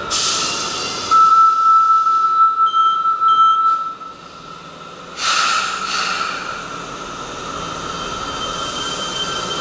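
Fukuoka City Subway train at the platform: a steady high tone with two short beeps, then from about five seconds in the rushing noise of the train running out of the station.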